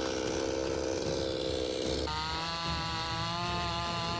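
Chainsaw engine running at a steady high speed. About two seconds in, its note changes abruptly to a different steady pitch.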